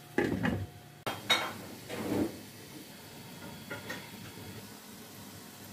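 A glass pan lid with a metal rim is set down onto a wok, clattering against the rim in a few sharp knocks and clinks over the first two seconds or so. Two lighter taps follow as the lid settles.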